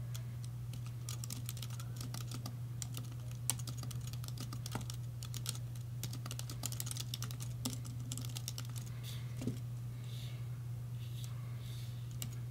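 Typing on a computer keyboard: an uneven run of quick key clicks over a steady low hum.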